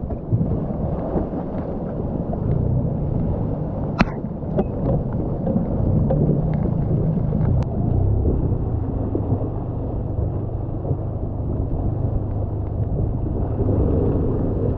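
Honda outboard motor on an inflatable tender running steadily under way with a low rumble, towing a small skiff on a line. There is a sharp knock about four seconds in.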